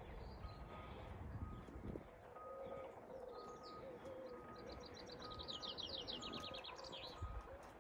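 Wild birds calling and singing: a short, even note repeated about once a second, a low cooing in the first half like a pigeon or dove, and a fast high trill about five seconds in.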